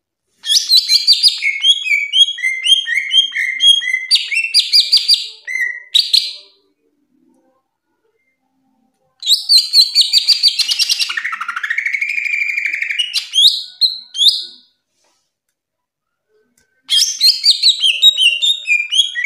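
Green leafbird (cucak ijo) singing loud, fast runs of varied chirps and whistles in three bursts, with pauses of about three seconds between them. The middle burst includes a slurred note that falls and then rises.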